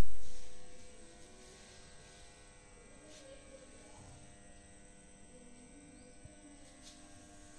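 A loud sound at the very start dies away within about a second, leaving a faint, steady hum. No rhythmic beating of a running loom is heard.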